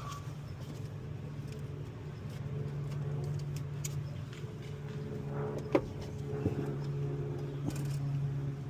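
Steady low machine hum, with a few sharp metallic clicks and clinks over it, the loudest about six seconds in.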